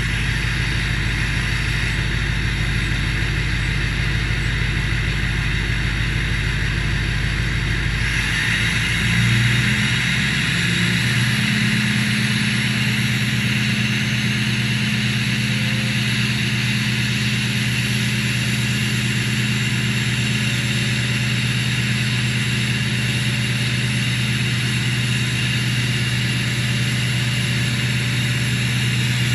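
2007 Chevy Silverado's LBZ Duramax 6.6-litre V8 turbodiesel idling cold through an MBRP exhaust. About nine seconds in, the engine speed steps up to a steady high idle and holds there, the raised idle used to warm a cold diesel.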